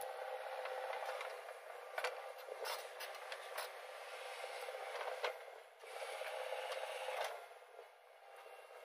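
JCB 3DX backhoe loader working, its engine running under a thin, hissy noise with the low end missing. Scraping and sharp knocks come about 2 s in, about 5 s in and about 7 s in as the backhoe bucket digs into the soil.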